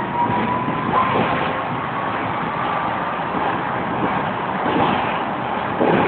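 Tram running along the street, heard from inside the car: a steady rumble of wheels on rails, with a thin whine that rises slowly in pitch and fades out about three seconds in.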